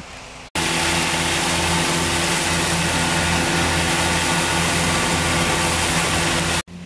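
Fendt 724 Vario tractor's six-cylinder diesel running steadily under load while its Krone Easy Cut front and rear disc mowers cut standing grass: an even engine drone under a loud hiss. It starts abruptly about half a second in and cuts off just before the end.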